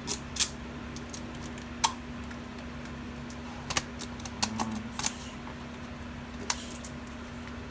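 Scattered clicks and taps of plastic packaging being handled and opened, irregular, with a cluster of quicker clicks a little past the middle, over a steady hum.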